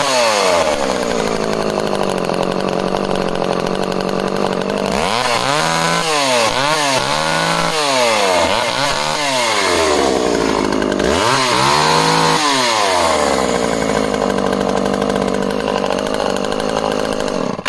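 Small two-stroke engine of a Dolmar 101 Hobby top-handle chainsaw (a rebadged Poulan Micro XXV) running with no cutting. It settles from high revs to idle, is blipped up and down several times in quick succession in the middle, idles again, then cuts off abruptly at the end.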